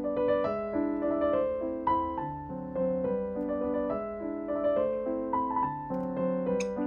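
Background piano music: a gentle melody of single notes and chords, a few notes a second.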